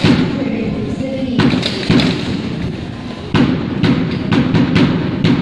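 Sharp stamps and slaps from a cadet drill team moving in formation, a few scattered strikes at first, then a steady beat of about two a second from about halfway on, over a low murmur of voices.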